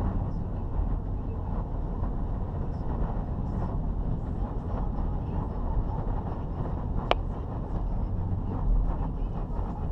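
Hurricane-force wind buffeting the microphone in a steady, gusting low rumble, with one sharp click about seven seconds in.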